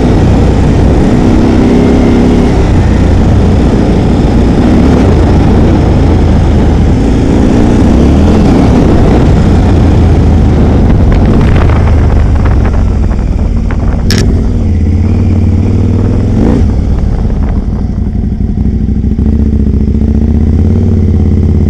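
Aprilia Caponord's V-twin engine running under way, its note rising and falling with the throttle, with wind noise on a helmet-mounted microphone that eases about two thirds in as the bike slows. A couple of sharp knocks come a little past the middle.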